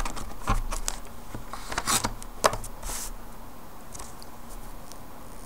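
A long flat clay blade cutting through a polymer clay cane on a paper-covered table: a few light knocks and taps of the blade on the surface with brief paper rustles, about six in the first three seconds, then quieter.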